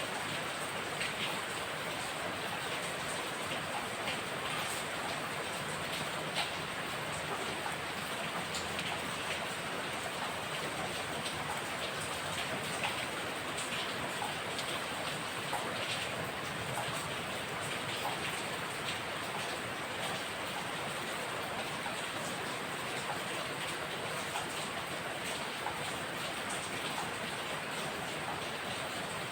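Steady rain falling, a continuous hiss with many small drops ticking on a surface.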